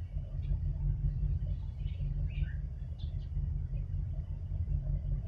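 Deep, steady rumble of a large container ship's engines as it passes close by, with a few faint bird chirps about two and three seconds in.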